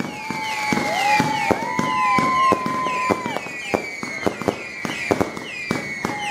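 New Year's firecrackers and fireworks going off: many sharp, irregular bangs. Behind them is a falling whistling chirp that repeats about three times a second, plus a longer held whistle in the first half.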